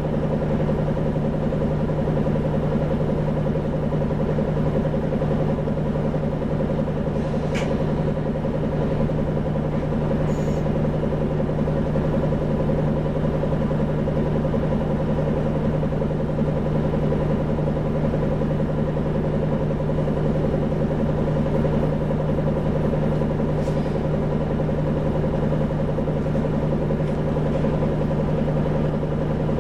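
Isuzu 2PG-LV290N3 city bus running steadily, a low, even hum with no change in pitch, with a few faint clicks.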